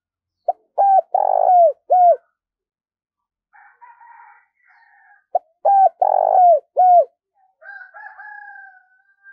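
Caged decoy spotted dove calling vigorously: two phrases of its cooing song, about five seconds apart. Each phrase is a few short coos around one long, drawn-out middle coo. Fainter, higher calls come in between and near the end.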